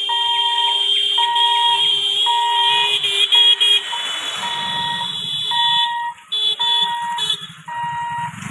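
Level-crossing warning hooter sounding a steady beep-beep, about one beep a second. A higher shrill electronic tone sounds over it on and off, loudest about three seconds in, and a motorcycle engine runs low underneath in the second half.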